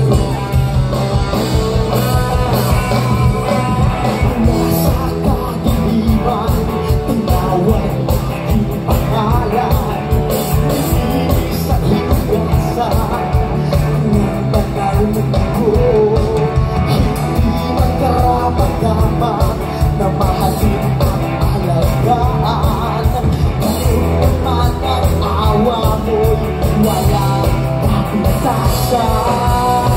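Live amplified rock band playing: a male singer singing over electric guitars, bass and drums, with a steady beat.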